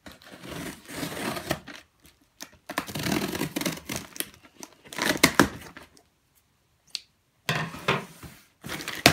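Packing tape on a cardboard shipping box being slit and torn, and the cardboard flaps pulled open: four bursts of ripping and scraping with short pauses between them, the loudest, with a few sharp cracks, about five seconds in.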